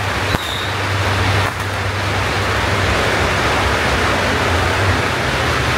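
A long string of firecrackers going off in a dense, continuous crackle, with a few sharper cracks in the first second and a steady low hum underneath.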